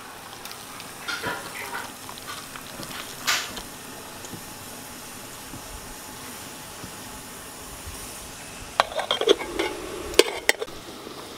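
Water boiling steadily in an aluminium pot, with a few soft splashes and knocks in the first few seconds as whole cucumbers are dropped in. Near the end the aluminium lid clatters onto the pot in a quick run of metallic knocks.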